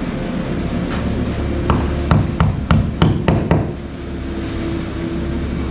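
A quick series of about seven sharp taps on wood, knocking out an epoxied fir bung that covers a screw in a wooden boat's hull plank. A steady hum runs underneath.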